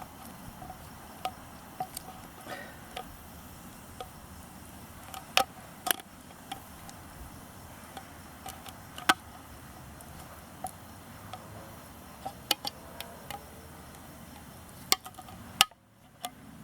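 Swiss Army knife can opener on a Victorinox Ranger Grip 74, levered bite by bite around the lid of a large tin can, each cut a sharp metal click at an irregular pace of about one a second.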